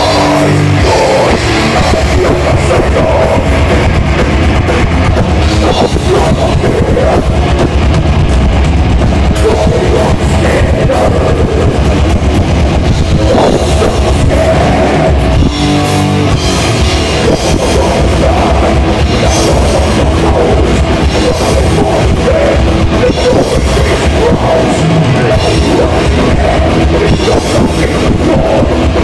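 Death metal band playing live at high volume: distorted electric guitars over a fast drum kit, heard from the crowd.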